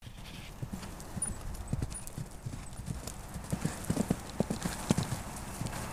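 Hoofbeats of a horse cantering on grass turf, a quick uneven run of dull thuds. They get louder over the middle seconds as the horse passes close by.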